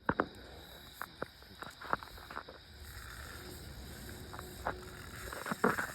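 Crickets chirring steadily, with scattered short clicks and knocks from handling gear, the loudest near the start and just before the end.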